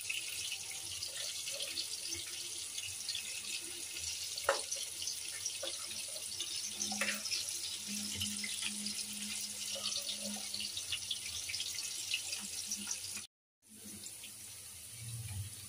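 Steady hissing with faint scattered crackles from a pan of steaming rice simmering on the stove, cutting out for a moment near the end.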